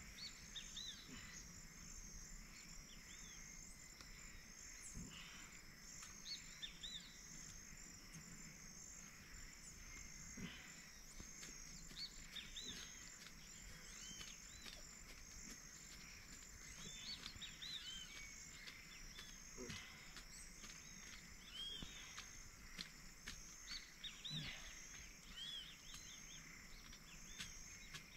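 Faint outdoor ambience: a steady, pulsing high-pitched insect chorus with many short bird chirps over it, and a few soft knocks.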